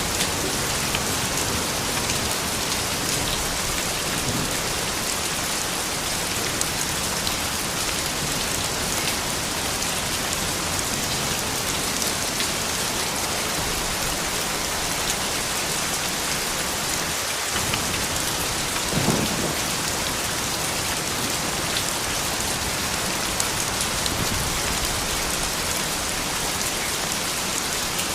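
Steady, dense rain falling, with a brief low thump about two-thirds of the way through.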